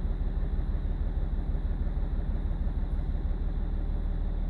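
BMW E46 330d's M57 three-litre straight-six diesel idling steadily. The owner puts the lumpy idle down to failing injectors, above all number 6.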